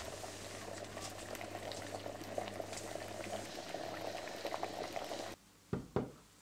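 Liquid boiling: a steady bubbling rush with many small crackles and a low hum, cutting off suddenly about five seconds in. Two low thumps follow near the end.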